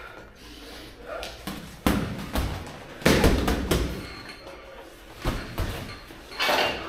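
Boxing gloves landing on a sparring partner's gloves, headgear and body protector: dull thuds at irregular intervals, with a quick flurry about three seconds in that is the loudest.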